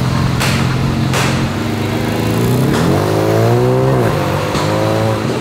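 BMW M2's twin-turbo straight-six exhaust pulling away: a steady low idle, then the revs climb for about a second, drop sharply about four seconds in, and climb again.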